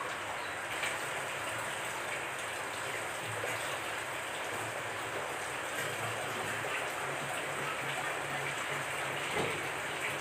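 Water running from a metal pipe and splashing steadily onto the bottom of an empty glass aquarium, filling the newly siliconed tank for a water leak test.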